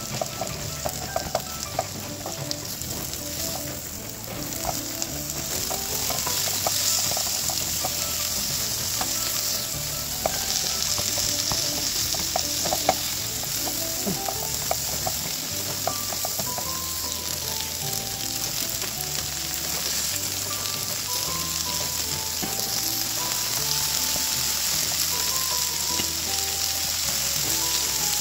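Sliced chillies, shallots and garlic sizzling in hot oil in a nonstick pan, stirred and scraped with a spatula, and later bean sprouts being tossed in the same pan. The sizzle grows louder a few seconds in and then holds steady.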